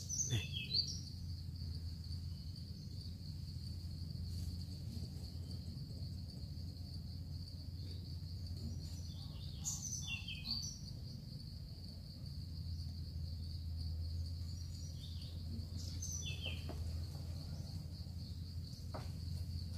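Steady high-pitched insect drone, with short falling bird chirps breaking in three times: at the start, about ten seconds in and again near sixteen seconds. A low rumble runs underneath.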